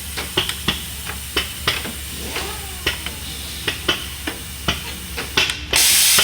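Pneumatic door-machining router with no cutters fitted, running its lock-bore cycle: irregular clicks and knocks over a steady machine hum, then near the end a loud, steady hiss of compressed air starts abruptly.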